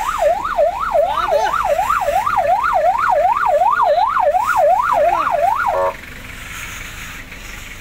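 Electronic siren wailing quickly up and down, a little over two sweeps a second, then cutting off abruptly after about six seconds.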